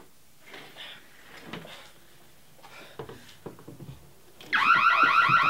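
Faint scrapes and knocks as a window is opened and climbed through, then about four and a half seconds in a home security alarm goes off loud: a rapid warbling electronic tone repeating several times a second, set off by the break-in.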